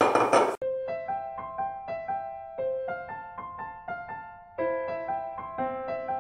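Background music: a slow piano melody of single ringing notes, with a few chords later on. It is preceded by about half a second of loud hiss that cuts off abruptly.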